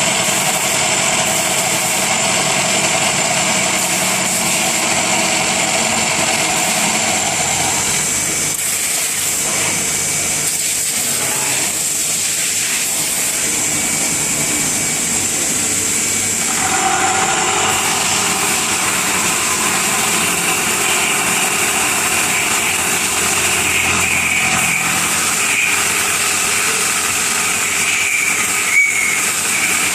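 Machine tool running: a steady mechanical hum with hiss. Its tone changes about seven seconds in and again about seventeen seconds in.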